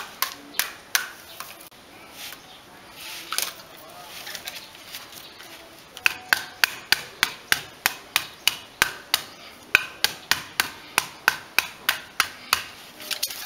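Ends of the bamboo sticks of a stick stool being knocked with a hand-held block, sharp woody knocks that tap the longer sticks down until the stool stands level. A few knocks at the start and quieter handling in the middle, then steady knocks about two or three a second from about six seconds in.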